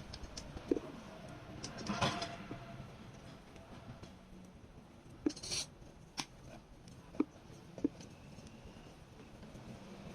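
A few scattered light clicks and knocks over a low background, with a short scrape about two seconds in: small objects being handled.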